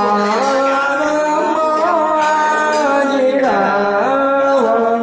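Vietnamese funeral music: a melodic line with sliding, wavering notes over a steadily held low note.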